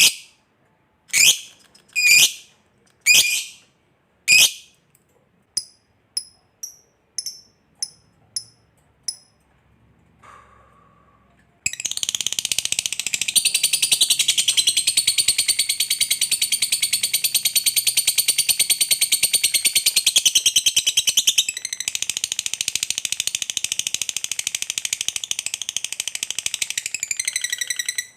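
Lovebird calling: a few sharp, high screeches about a second apart, then some fainter short chirps, then a long, rapid chattering trill (the 'ngekek panjang' of a fighter lovebird) that runs for about sixteen seconds.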